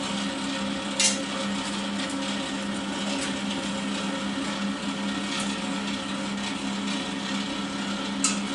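Steady hum of a running workshop machine, with two sharp metal clinks, one about a second in and one near the end, as a steel piece is set against a steel box-section frame.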